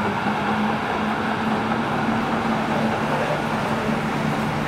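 Tram running close by: a steady electric hum over the rumble of wheels on rail. The hum drops slightly in pitch about three seconds in.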